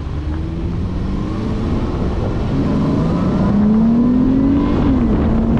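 2018 Dodge Charger engine on its stock air filter, accelerating in sport mode: the engine note climbs steadily and gets louder, then drops in pitch near the end as the transmission shifts up, and carries on at the lower pitch.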